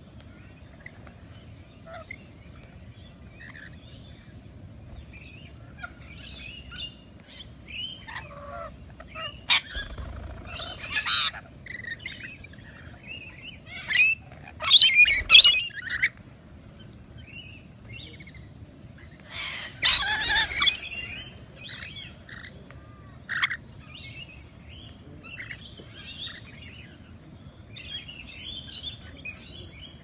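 Rainbow lorikeets chattering with scattered short, high chirps, breaking into loud, harsh screeching in two bursts, about halfway through and again a few seconds later.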